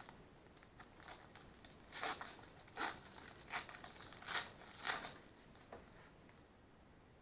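A trading card pack's wrapper crinkling and cards being handled, in a series of short rustles that stop about six seconds in.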